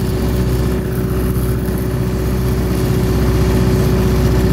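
An engine running at a steady idle, with an even hum that does not change.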